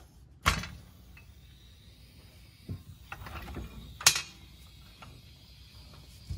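Metal clicks from the ratcheting safety catches of a Harbor Freight motorcycle lift stand being worked by hand: a sharp click about half a second in, a few lighter ticks around three seconds, and the loudest click about four seconds in.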